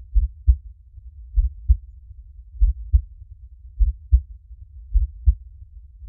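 A slow heartbeat, about 50 beats a minute: five low double thumps (lub-dub), one every 1.2 seconds or so, over a faint low rumble.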